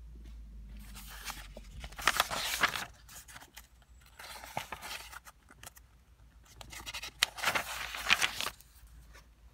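Pages of an old paper desk diary being turned by hand: about four bursts of paper rustling and crackling, the loudest about two seconds in and again around seven to eight seconds in.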